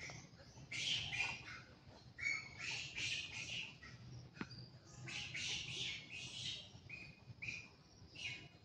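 Monkeys squeaking: a run of short, high-pitched squeaks and chirps in quick clusters, then a few single squeaks near the end.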